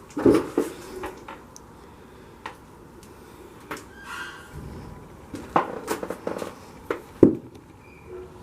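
Several sharp knocks and clicks with faint creaking squeaks between them, the loudest knock near the end, typical of loose metal scraping and banging against tin in an old building.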